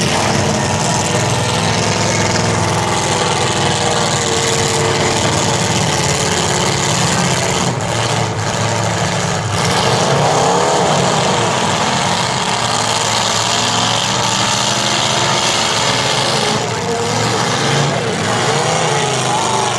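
Several demolition derby cars' engines running together loudly, revving up and down with a surge of revs about halfway through.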